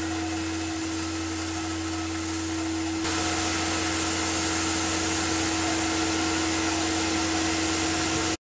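Tormach PCNC 1100 CNC mill's spindle running with a steady whine while an end mill cuts a thin steel sheet, over a steady hiss. The sound steps up louder and brighter about three seconds in.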